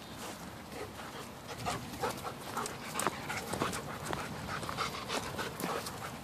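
A shepherd dog panting close by, with irregular footsteps on a dirt trail.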